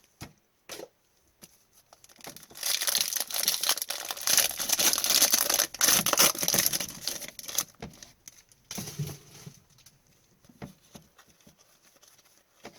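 A hockey card pack's wrapper being torn open and crinkled, a dense crackling rustle lasting about five seconds, with a few small handling clicks before and after.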